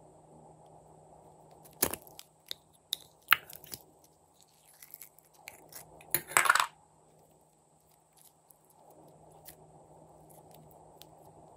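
Glossy slime squeezed and stretched by hand, giving sticky clicks and pops in two bursts, about two seconds in and again around six seconds in. A faint steady hum runs underneath.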